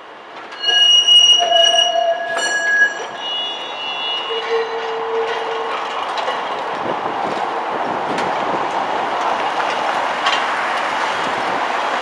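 Historic tramcar's steel wheels squealing on a tight curve through a junction, a loud shrill squeal in several shifting pitches for the first five seconds or so. Then a steady rolling rumble of a vintage tram running past close by on the rails, with a few light clicks.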